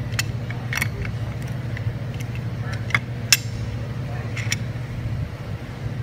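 Adjustable wrenches clicking and clinking against a steel jam nut and valve stem as the nut is tightened down, a handful of sharp metallic ticks with the loudest about halfway through. A steady low hum runs underneath.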